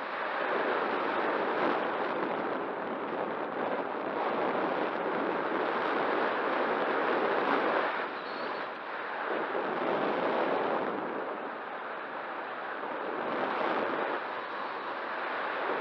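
Wind rushing over the microphone, swelling and easing every few seconds.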